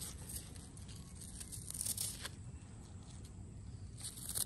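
Gloved fingers scraping and brushing through damp sandy soil in a dig hole: faint rustling, with brief scratchy scrapes about two seconds in and again near the end.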